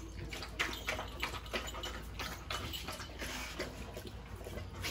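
Labrador lapping water from a plastic water dispenser bowl: a string of quick, wet, irregular laps, about three a second.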